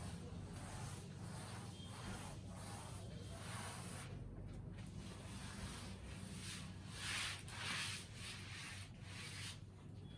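A cloth wiping a chalkboard: repeated swishing rubbing strokes, loudest about seven to eight seconds in.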